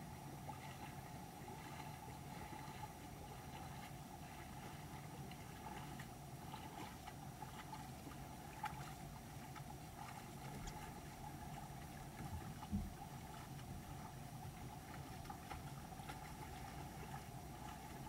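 Shallow creek water running steadily over stones, with faint splashing from black bear cubs wading through it. A single dull low thump about two-thirds of the way through.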